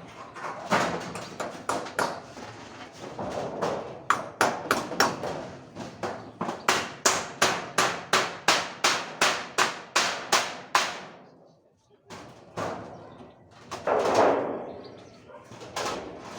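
A run of sharp, evenly spaced knocks, about two a second for several seconds, breaking off near the middle, with voices around it.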